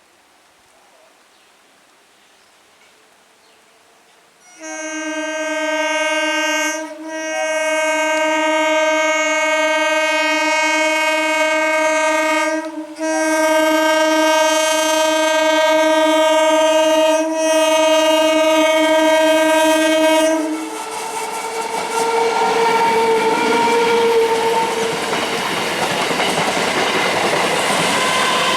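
An Indian Railways train's air horn honks loudly after a few seconds of quiet, held for about sixteen seconds with three brief breaks. The train then rushes past over the rails, its wheels clattering, with some wheel squeal.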